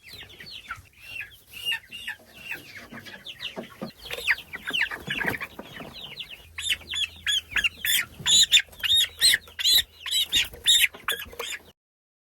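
Young meat chickens (broilers) peeping in a rapid stream of short, high, falling chirps, with a stretch of scuffling a few seconds in. The peeping grows louder and busier about halfway through, then cuts off abruptly near the end.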